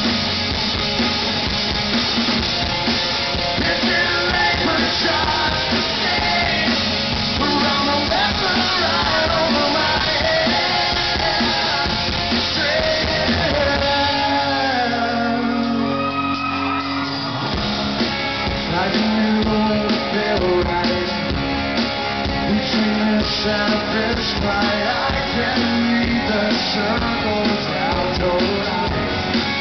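Live rock band performing: a male lead singer over electric guitars, bass and drums, heard from the audience. About halfway through, the drums and bass drop out for a few seconds, leaving the voice and guitar, and then the full band comes back in.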